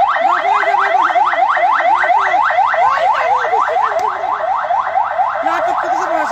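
Electronic siren sounding a fast, loud yelp: a rising electronic tone repeated about six times a second without a break.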